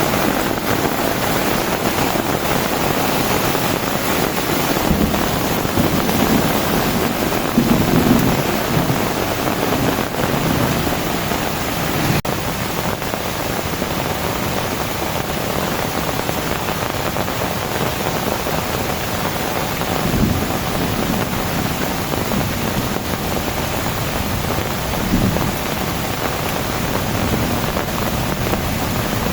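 Heavy rain pouring down steadily, with a few brief low rumbles about a quarter, two-thirds and five-sixths of the way through.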